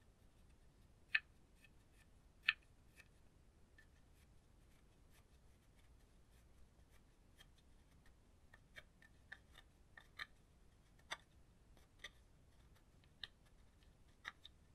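Plastic spatula tapping and scraping into a pressed gold eyeshadow in its small plastic case, breaking it up into powder. Two sharp clicks about a second in and a second and a half later, then a run of small scratchy clicks and taps that grow more frequent in the second half.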